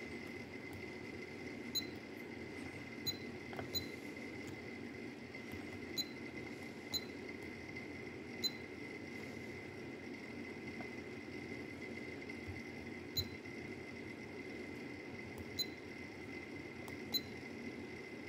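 Control board of a spot welding kit beeping as its buttons are pressed: about a dozen short high beeps at irregular intervals while the settings are stepped through. A faint steady high whine runs underneath.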